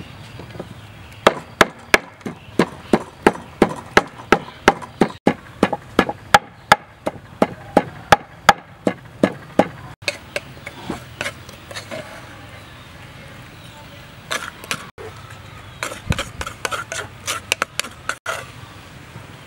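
Wooden pestle pounding in a wooden mortar, hard, even knocks about three a second, then after a pause softer, irregular knocks.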